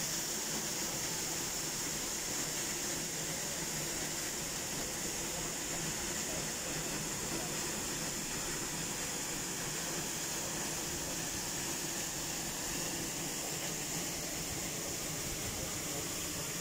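Waterfall's falling water making a steady, even rushing hiss that does not change.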